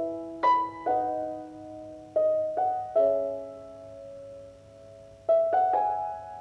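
Background piano music: soft, slow chords and single notes that ring and fade.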